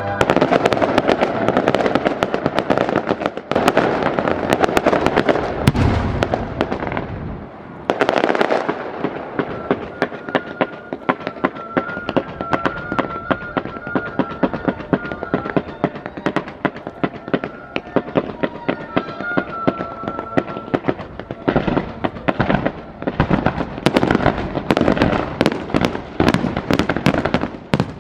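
Fireworks display: a continuous barrage of bangs and crackling bursts, with heavier volleys at the start, about eight seconds in, and again through the last several seconds.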